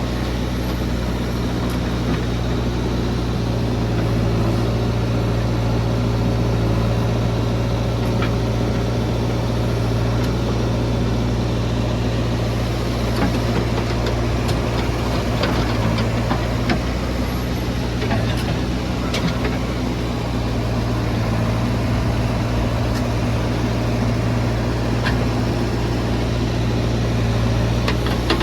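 Heavy diesel engine running at a steady speed with a strong low hum, and a few faint short clicks over it.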